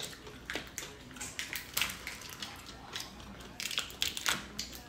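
Boiled shellfish shells cracking and crunching as they are pulled apart and peeled by hand, a string of sharp, irregular cracks.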